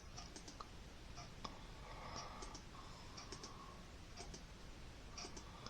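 Faint, irregular clicking of a computer keyboard.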